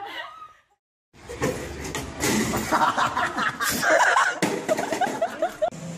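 People laughing, broken by a brief gap of silence under a second in; after it, loud voices and laughter, ending in a run of short rising laughs.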